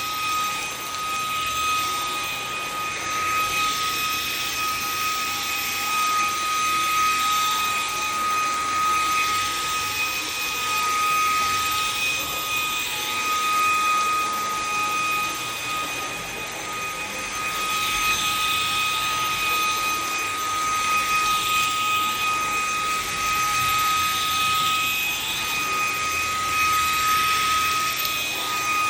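Vacuum cleaner running: a steady high-pitched motor whine over a rush of air that swells and eases every few seconds as it is worked.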